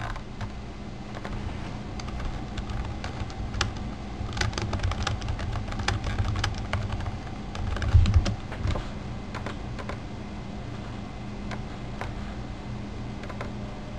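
Typing on a computer keyboard: irregular keystroke clicks, quickening in a burst in the middle, over a steady low electrical hum, with one louder low thump a little past halfway.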